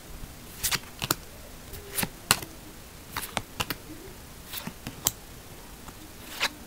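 Yu-Gi-Oh! trading cards being flipped through in the hands, one card at a time moved to the back of the stack, giving about a dozen light, irregular clicks and snaps of card edges.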